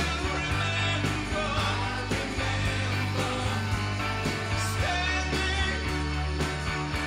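Background music: a song with a singing voice over sustained bass notes and a steady beat.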